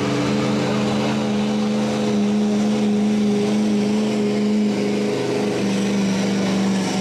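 Ford Super Duty pickup's diesel engine running hard at high, steady revs under full load while dragging a weight-transfer pulling sled. It is a loud, even drone that eases very slightly in pitch near the end.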